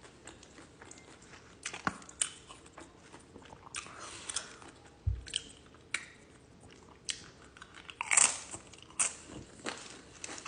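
Close-miked eating: a person biting and chewing food, with irregular wet clicks and crunches and a louder crunch about eight seconds in.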